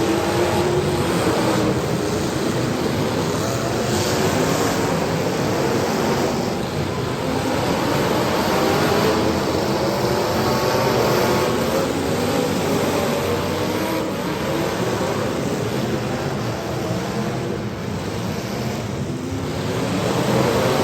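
Several demolition derby car engines running and revving at once, their pitches wandering up and down.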